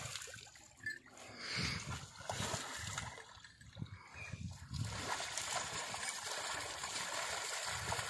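Pond water splashing and sloshing unevenly around a bullock as a man washes it, scooping and splashing water over its head and neck.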